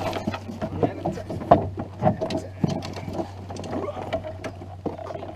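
Knocks, bumps and scrapes on a canoe as people climb aboard and shift their weight and gear, with the loudest knock about a second and a half in.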